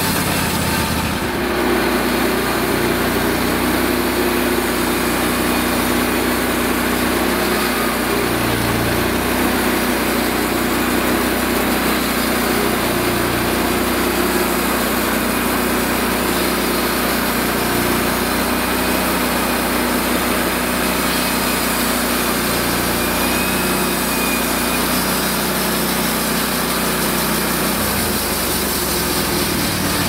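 Wood-Mizer LX150 portable band sawmill running at working speed, its engine a steady loud drone while the saw head travels along upright log rounds, cutting them into cookies.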